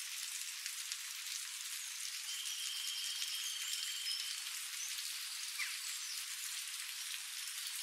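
Steady hiss of rain falling on leaves and ground, with scattered faint drip ticks. A faint high held note runs for about two seconds from about two seconds in, with a few short chirps around it.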